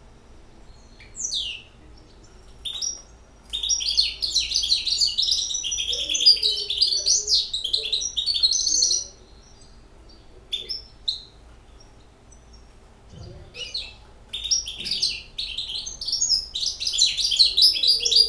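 Six-month-old goldfinch hybrid singing in its cage: rapid, high twittering song in two long runs, one in the first half and one near the end, with short single calls between them.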